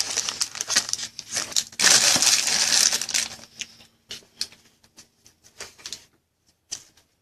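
Foil trading-card pack wrapper being torn open and crumpled, a loud crinkling for about three seconds, then a few light clicks and taps as the cards are handled.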